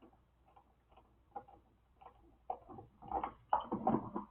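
Light clicks and taps of small hard parts being handled, a few scattered at first and coming closer together and louder near the end.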